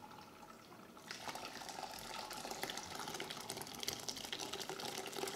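Hot curds and whey pouring from a pot into a cheesecloth-lined strainer, a splashing stream of liquid that grows stronger about a second in.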